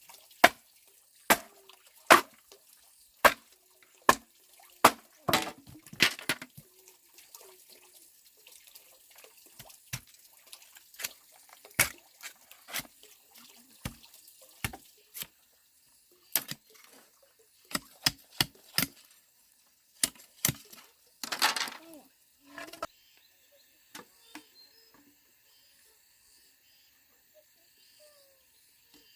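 A string of sharp, irregular knocks and clicks, about one a second at first and sparser later, among water sounds, with a short rush of noise about three-quarters of the way in. Faint steady high chirping, typical of insects, is left near the end.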